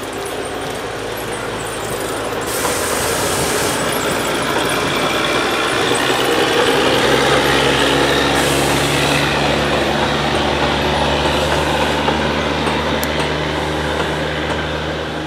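Narrow-gauge diesel locomotive passing at low speed with a train of wooden passenger coaches. The steady engine note and the rolling of the coaches grow louder as the train goes by, then ease off. Two short hisses come about 3 s and 9 s in.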